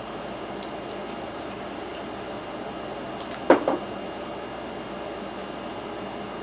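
Mouth noise while eating crab: one loud, short wet squelch about three and a half seconds in, with a few faint clicks of shell around it, over a steady background hiss.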